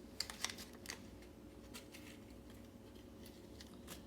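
Light, scattered metallic clicks and taps from handling a lock cylinder with its key and shim, most of them in the first second and a couple more later.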